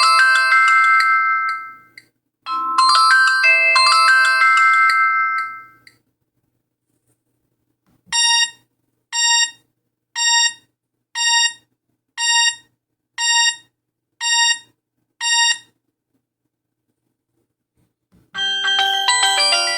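Alcatel 3025 mobile phone's built-in tones. A short synthesized ringtone melody plays twice, then a run of eight identical short beeps about a second apart, then a different melody starts near the end.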